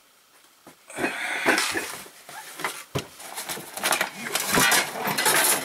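Nylon carry bags rustling and camping gear knocking as it is handled and packed, beginning about a second in with many short clatters and growing busier toward the end.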